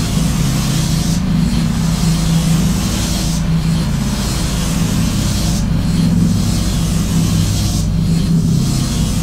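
Harsh noise music: a loud, dense wall of static hiss over a steady low drone, the hiss thinning briefly about every two seconds.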